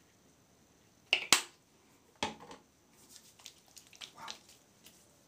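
Sharp clicks and light handling noises from opening a container of aftershave balm: two clicks close together a little after a second in, a third about a second later, then faint small clicks.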